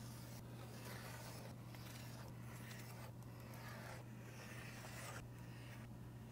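X-Acto knife drawn along a metal ruler, slicing through printer paper in a run of faint scraping strokes, roughly one a second, over a steady low hum.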